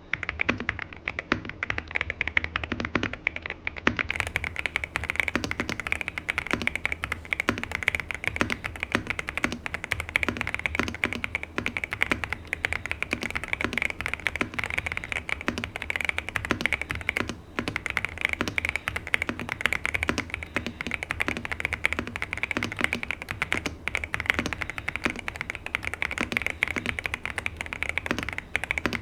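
Continuous fast typing on an Epomaker Cypher81 mechanical keyboard, stock out of the box: dense, rapid keystroke clacks with one brief pause about two thirds of the way through.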